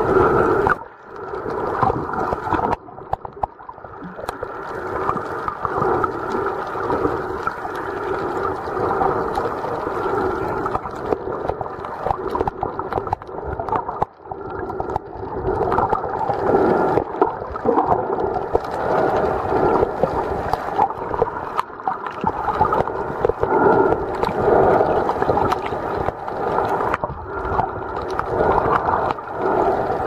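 Muffled underwater sound from a camera held below the surface while snorkeling: a continuous gurgling, sloshing wash of water that swells and dips.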